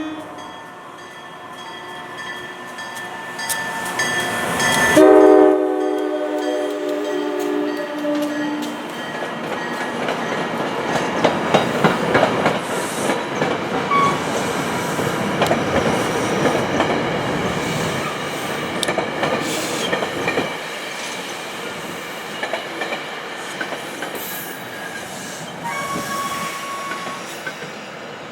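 Train horn sounding a chord for about four seconds, then the train passing, its wheels clicking rhythmically over the rail joints; the passing noise grows loud and slowly fades toward the end.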